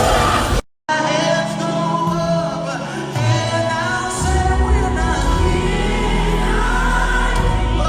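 Gospel choir singing over instrumental backing with steady low bass notes. A sharp gap of silence less than a second in, like an edit cut, interrupts it.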